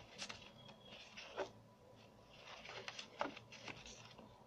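Faint paper rustling and light taps from a folded instruction leaflet being handled, unfolded and its pages turned, in short irregular bursts that are busiest in the second half.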